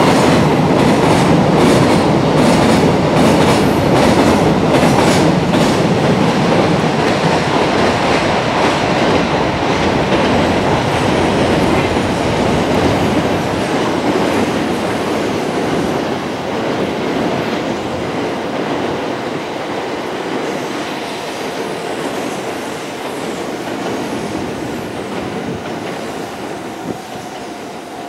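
Freight train's container wagons rolling past on jointed track, the wheels clacking rhythmically over the rail joints. The clacking is strongest for the first few seconds, then the rumble fades steadily as the train draws away.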